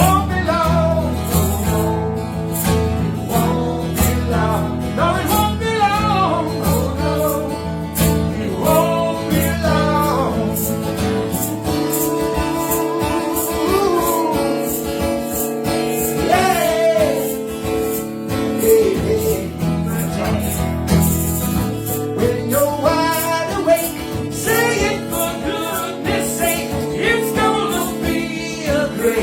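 Live singing, led by a woman's voice with a man's voice in the mix, over guitar accompaniment; the voice holds long, sliding notes with no clear words.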